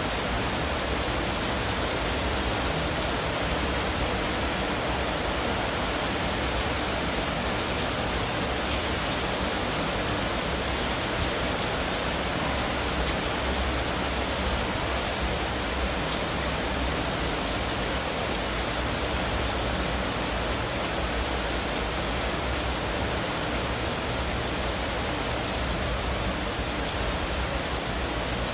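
Heavy rain pouring steadily against window glass, an even hiss with a low rumble underneath.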